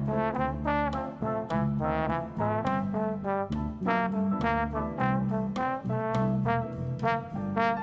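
Trombone playing a jazz melody line of quickly changing notes, accompanied by piano and electric bass.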